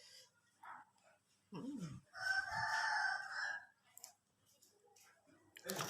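A rooster crowing once: a single long, held call lasting about a second and a half, starting about two seconds in.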